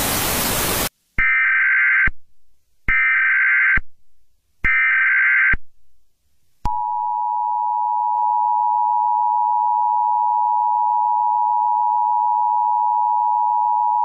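A short burst of TV static, then three Emergency Alert System SAME header data bursts of about a second each. About seven seconds in, the EAS attention signal starts: a steady two-tone 853 and 960 Hz alarm that holds.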